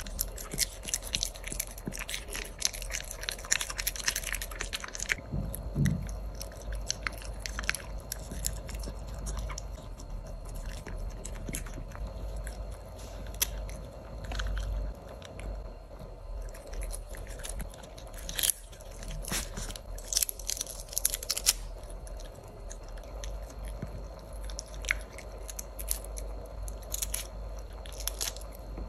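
Shiba Inu puppy biting and chewing food close to the microphone. First comes a small treat with dense crunching for about five seconds, then a lettuce leaf with scattered crisp crunches.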